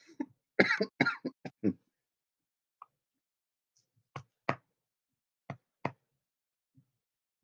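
A man coughing and clearing his throat: a quick run of short coughs about half a second in, then a few single coughs between four and six seconds.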